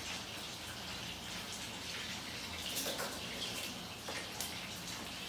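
Table knife spreading mayonnaise on a slice of bread: a few faint, soft scrapes over a steady room hum and hiss.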